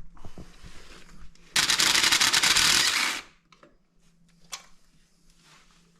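Ratchet wrench clicking rapidly for about a second and a half while loosening the bolts of an ATV engine cover, with a few faint taps afterwards.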